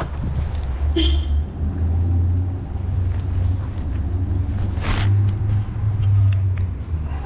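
Low, uneven rumble of wind buffeting the microphone while walking outdoors, with a single short knock about five seconds in.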